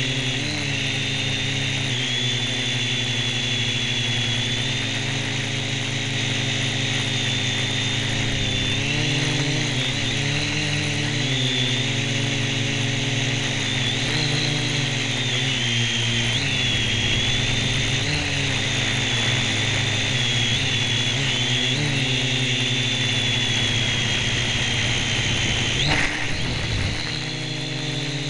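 Syma X1 quadcopter's small electric motors and propellers whining, heard close up from the camera strapped to the drone, the pitch dipping and rising again and again as the throttle changes. A brief sharp knock near the end.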